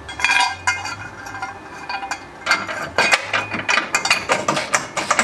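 Welded steel rack arm clinking and knocking against its mounting point under the car as it is offered up and fitted, with a quick run of metallic clicks from about halfway through.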